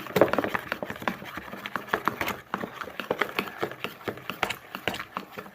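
A spoon stirring a soapy slime mixture in a plastic Tupperware tub, knocking against the tub in quick, irregular clicks and taps.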